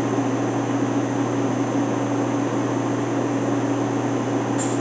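Haas VF-E vertical machining center running under power with a steady hum and a thin high whine while its Z axis is jogged. A brief high chirp near the end.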